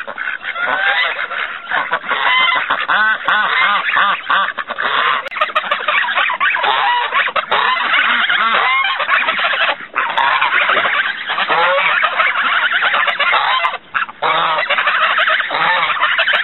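A flock of domestic geese honking loudly, many calls overlapping almost without a break, with a couple of short lulls in the second half.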